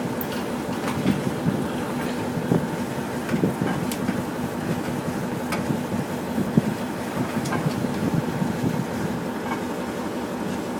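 Boat engine running steadily underway, a constant drone with scattered short knocks and clicks over it.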